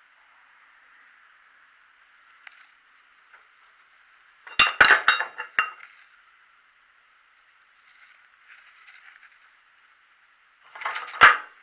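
Handled metal parts or tools clinking and knocking, in two short clusters: one about four and a half seconds in, the other near the end.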